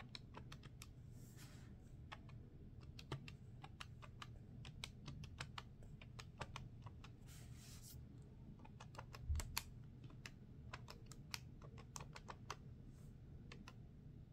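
Plastic keys of a desk calculator being tapped in quick, irregular runs as a long series of numbers is keyed in. There is a single soft thump about nine seconds in.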